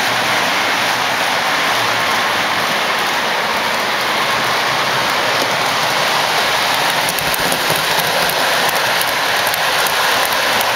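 Lionel O-gauge model trains running on three-rail track: a steady rushing rumble of wheels and motors. Faint clicks come more and more often from about halfway through.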